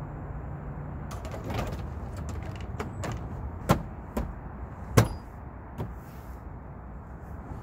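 Scattered sharp clicks and knocks of handling in the minivan's cab, the two loudest about a second apart near the middle, over a steady low background rumble.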